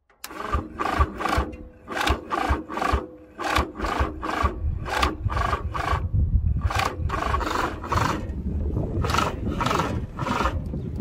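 Small diesel tractor engine cranking on its starter without catching: a rhythmic hing-hing-hing of about three compression strokes a second. The cause turns out to be an air filter clogged with dirt and dust.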